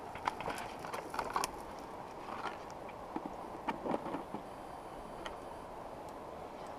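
Fishing tackle and a plastic tackle box being handled: scattered clicks, knocks and rattles, most of them in the first four seconds, over a steady hiss.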